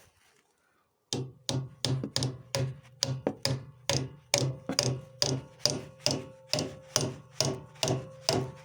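Hammer tapping on metal in a steady, even rhythm, a little under three blows a second, each blow with a short metallic ring; the tapping starts about a second in.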